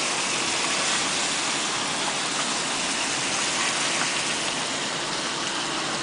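Steady rushing road and wind noise of a moving car: an even hiss with no engine note standing out.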